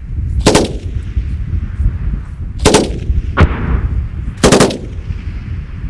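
Three short bursts of automatic gunfire, about two seconds apart, each several rapid shots, with a single shot between the second and third. A steady low wind rumble on the microphone runs underneath.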